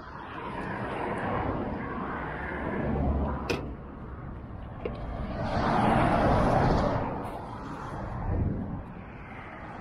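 Riding noise of a bicycle on a rough gravel path: tyres rolling over the gravel with wind rushing on the microphone, swelling louder about six seconds in, and one sharp click about three and a half seconds in.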